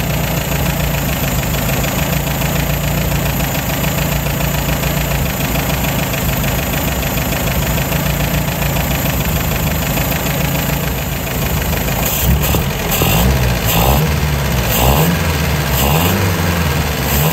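1953 MG TD's 1250 cc four-cylinder XPAG engine, its twin SU carburettors freshly timed and synced, idling steadily. About twelve seconds in, the engine speed rises and falls several times.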